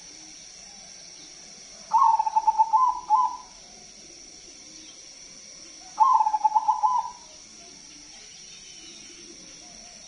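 Zebra dove (perkutut) singing two song phrases about four seconds apart, each a quick run of cooing notes lasting a second or so. The bird is a crossbred perkutut.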